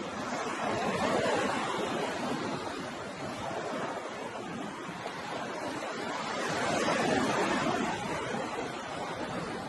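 Ocean waves breaking and washing in, a steady rush of surf that swells about a second in and again around seven seconds.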